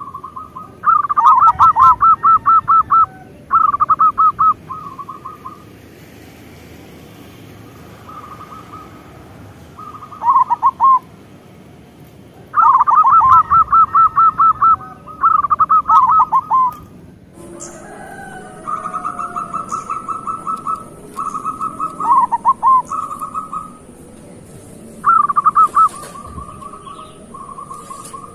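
Local zebra dove (perkutut) cooing. It gives repeated phrases of fast, evenly spaced staccato notes, some ending in lower, bending notes, with short pauses between phrases.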